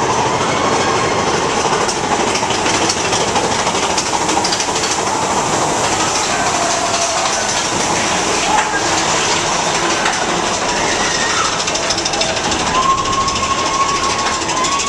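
Mine-train roller coaster cars rolling along the track, a steady, loud rattling and clattering of wheels and car bodies.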